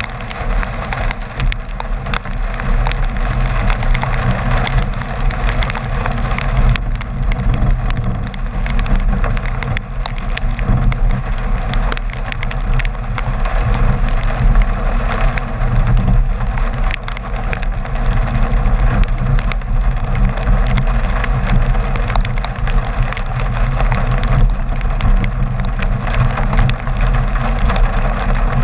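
Car driving on a wet street in rain: a steady low rumble of engine and tyres on wet road, with a dense run of sharp little ticks from raindrops striking close to the microphone.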